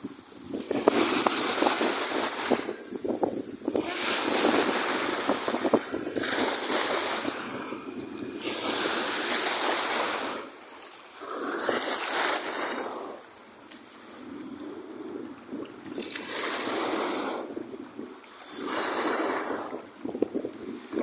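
Sea water washing and splashing in surges that swell and fade every two to three seconds, each surge with a bright hiss.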